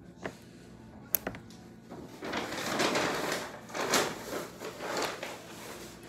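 Wooden spring clothespins being worked by hand: two sharp clicks in the first second or so, then about three seconds of rustling and scraping handling noise.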